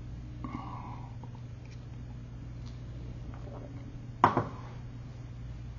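Quiet room with a steady low hum, broken by a single sharp knock about four seconds in as the man shifts in front of the camera.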